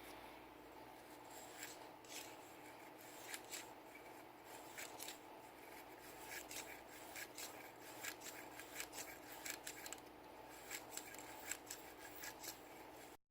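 Faint scratchy brushing and rubbing strokes with light clicks from cleaning a Sig Sauer P320 pistol, coming more often in the second half, over a steady hum. The sound cuts off suddenly near the end.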